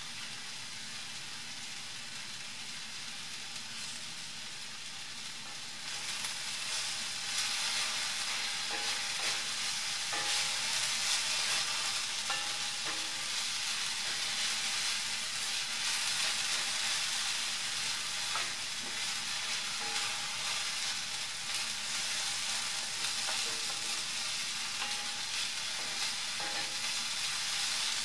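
Sliced red onions sizzling in hot coconut oil in a pan, the frying growing louder about six seconds in, with a wooden spatula stirring and scraping through them.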